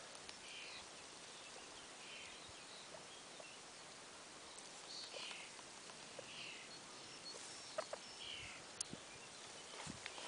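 Faint outdoor background hiss with soft, short chirps roughly once a second and a few small clicks near the end.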